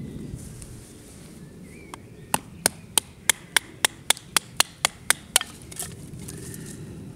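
Knife blade chopping into a wooden stake held against a log: about a dozen sharp chops at an even rhythm, roughly four a second, starting about two seconds in.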